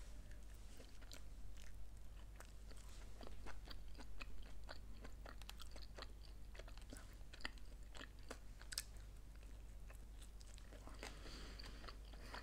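A person chewing a bite of quesadilla close to the microphone: quiet, with many small wet mouth clicks through the whole stretch.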